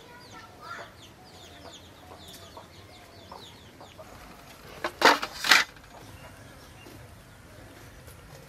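Chickens clucking, with quick high chirps through the first few seconds and two short, loud noisy bursts about five seconds in.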